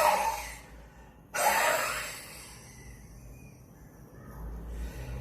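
A man's forceful breathy "ha" exhalations, a short one at the start and a longer hissing one about a second and a half in that fades over about a second. The breath is driven out from the lower abdomen (dantian), as in squat-exhale breathing practice.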